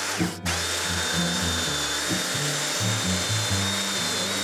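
Handheld belt sander running steadily as it sands the end grain of a wooden frame piece, with a steady high whine and a short dip about half a second in. Background music with a bass line plays underneath.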